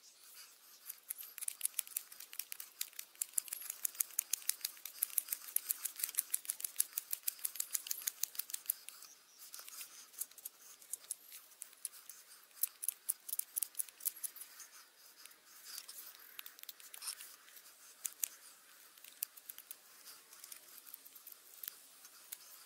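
Knife blade whittling a green-wood spoon blank, a rapid run of short, crisp shaving cuts for the first eight or nine seconds, then slower, scattered cuts.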